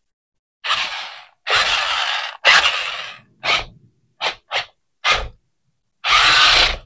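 Unboxing sounds: a series of about eight short scraping and rustling noises from packaging and a toy RC car being handled, each under a second long, with dead silence between them.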